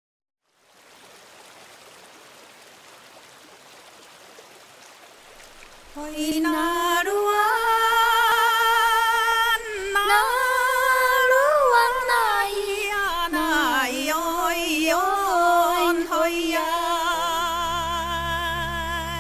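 Background music for the opening of a song: faint hiss, then about six seconds in a single high melody line enters with strong vibrato and long held notes, and a low accompaniment joins near the end.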